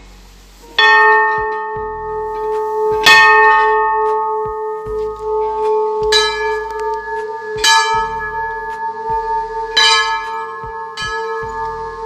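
Large hanging brass temple bell struck six times at uneven intervals, each strike ringing on in a long steady hum so that the tones overlap and never die away between strokes.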